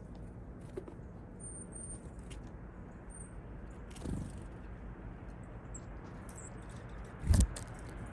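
Small songbirds chirping faintly with short, high notes over steady outdoor background noise. A soft thud about four seconds in and a much louder dull thump about seven seconds in.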